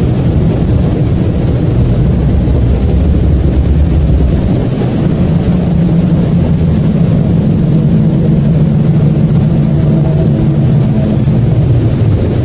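A loud, steady low rumble with a deep hum running through it; the deepest bass eases off about five seconds in.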